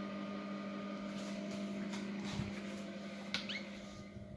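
A steady motor hum, easing off slightly near the end, with a couple of faint clicks and a soft thump about halfway through.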